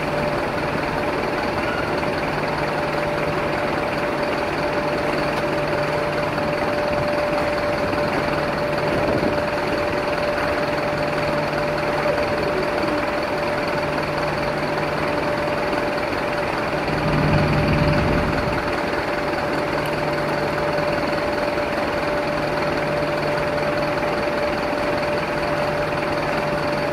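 A vehicle engine idling steadily, with a constant hum and a low throb that swells briefly about two-thirds of the way through.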